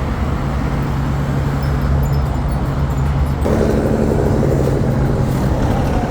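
A motor vehicle's engine running with a steady low hum, growing fuller a little past halfway.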